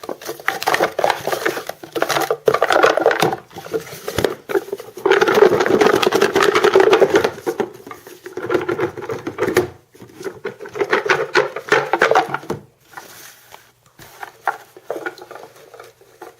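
Cards rustling and rubbing together as they are mixed and one is drawn, in irregular bursts that thin out over the last few seconds.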